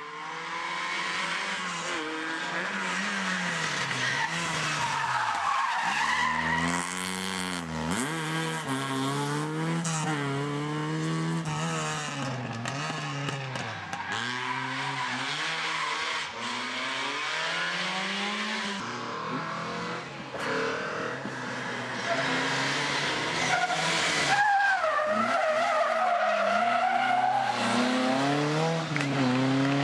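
Historic rally car engines revving hard through hairpin bends, the pitch climbing and dropping again and again with each acceleration, lift and gear change. Tyres squeal briefly about three-quarters of the way through.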